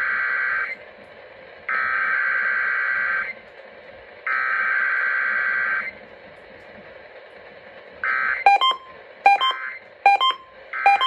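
Three bursts of the Emergency Alert System SAME header, the harsh digital data squawk that opens an EAS test, each lasting about a second and a half with a short pause between. Near the end comes a run of short beeps, roughly one every 0.8 s.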